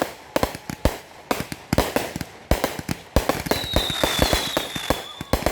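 Fireworks going off in a dense finale, many sharp bangs and pops in quick, irregular succession, with a high falling whistle lasting about a second and a half past the middle.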